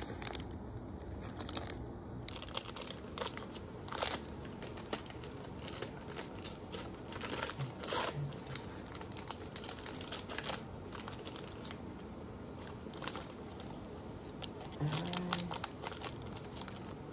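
Plastic packaging of mini toys crinkling and tearing as it is unwrapped by hand, with many small clicks and taps of the pieces being handled.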